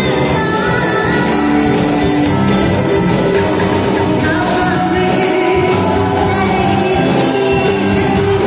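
Angklung ensemble playing a tune live, the shaken bamboo tubes giving rattling, sustained chords.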